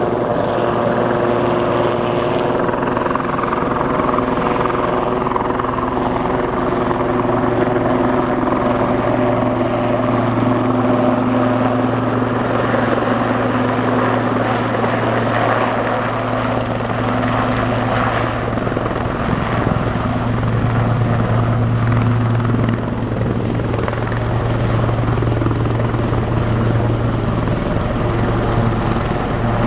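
Sikorsky S-76 twin-turbine helicopter hovering low and setting down, engines and rotors running: a loud, steady low hum with held tones above it. The higher tones fade about two-thirds of the way in as the low hum grows.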